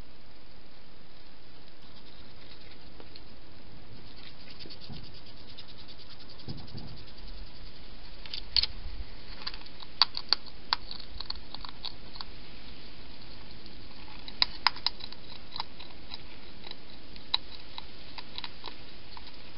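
A European hedgehog feeding at a dish: irregular sharp clicks and crunches, a few at a time, starting about eight seconds in, over a steady hiss.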